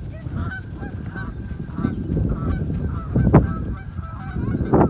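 A flock of Canada geese honking in alarm, many short overlapping calls without a break, after being chased by a dog. Under the calls runs a heavy low rumble, with two loud bumps about three seconds in and near the end.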